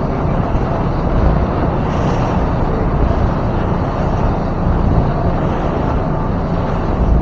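2000 StarCraft motorboat under way in big waves: a steady low rumble of engine and water, with wind buffeting the microphone.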